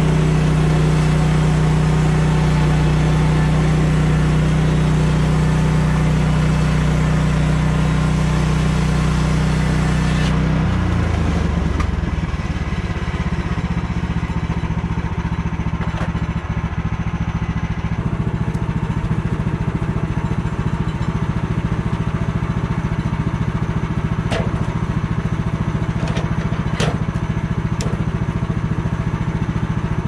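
Woodland Mills HM130 sawmill's 14 hp Kohler recoil-start engine running steadily under throttle, then dropping down to a rougher, lower idle about ten seconds in. A few sharp knocks of boards being handled sound over the idle in the second half.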